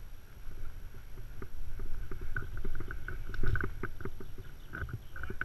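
Rigging rope and the cut Monterey cypress branch creaking and crackling in a rapid run of short creaks and cracks as the branch is lowered on the rope, loudest about three and a half seconds in.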